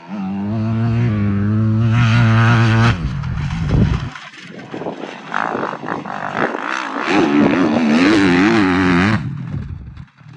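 Motocross dirt bike engine at high revs as the bike rides the track, holding a steady pitch for about three seconds, then rising and falling with the throttle from about five seconds in.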